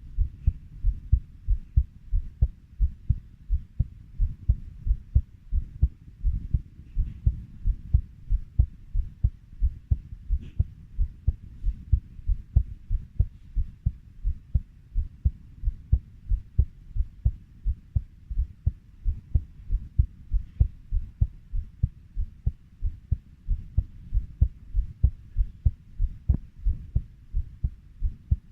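Heartbeat beating steadily at 90 beats per minute, each beat a low lub-dub pair of thumps in an even, unchanging rhythm.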